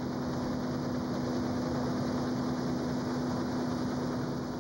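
Combine harvester running in a wheat field: a steady mechanical hum with one constant tone over a wash of machinery noise.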